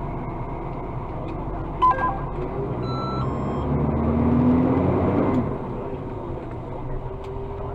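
Cab of an Iveco Acco garbage truck with its diesel engine running, heard from inside. A sharp click about two seconds in is followed by a few short electronic beeps, then a rising tone swells and the sound gets louder for a couple of seconds before settling back.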